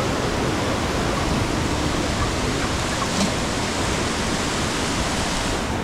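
Fast stream rushing over rocks as white water, a steady, even noise.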